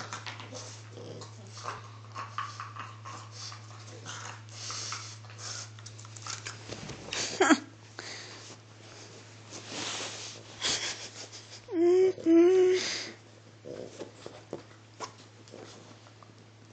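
French bulldog scuffling and rustling at close range during play, with a short yelp that slides down in pitch about halfway through and two short whines a few seconds later.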